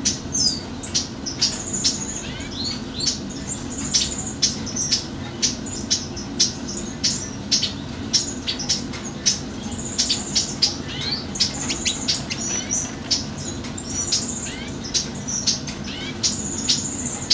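Lesser goldfinches (black-backed Colombian race, Spinus psaltria colombianus) singing: a rapid, continuous twitter of short high chirps and notes, over a low steady hum.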